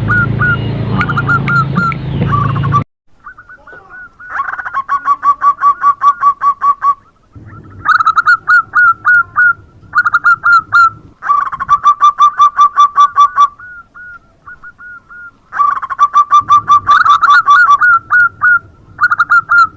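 Zebra dove (perkutut) singing: repeated phrases of rapid, evenly paced staccato cooing notes, each run lasting a few seconds with short pauses between. Over the first three seconds the calls sit on a rougher background sound that cuts off sharply.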